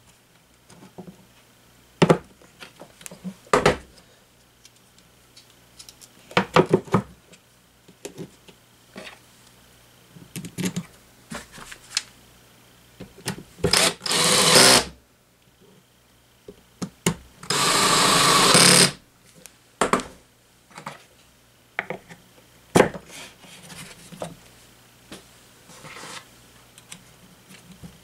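A Ryobi 18-volt cordless drill-driver running screws into a small fan motor's mounting bracket in two bursts of about a second and a half each, a few seconds apart near the middle. Scattered clicks and knocks of plastic fan parts being handled come between.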